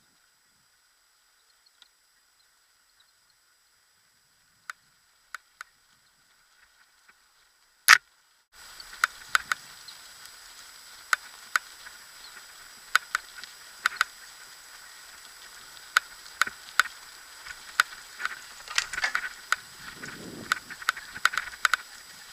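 Almost silent at first, with a few sharp isolated clicks. About eight seconds in, a steady rolling noise starts, dotted with frequent irregular clicks and knocks: a dog-pulled kick scooter rolling and rattling along a trail.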